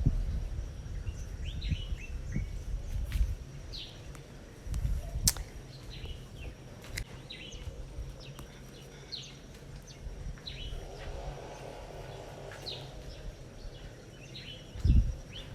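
Small birds chirping in the background, short falling chirps about every second or so, over a low rumble, with a few faint sharp clicks.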